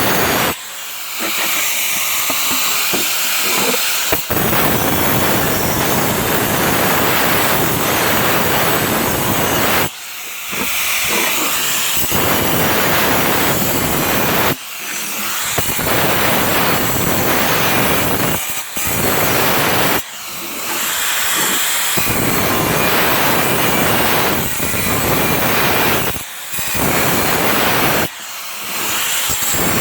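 Makita angle grinder cutting into ceramic tile: a loud, harsh grinding, eased off briefly several times as the blade is lifted and set back into the cut.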